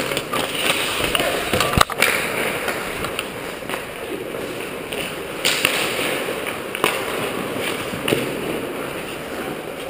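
Ice hockey play close by: skate blades scraping and carving the ice, with several sharp clacks of sticks and puck, the strongest about two seconds in, echoing in the rink.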